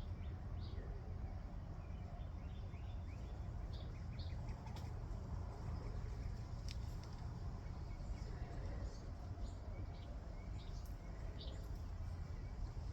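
Small birds chirping in short scattered calls over a steady low rumble, with a couple of sharp clicks in the middle.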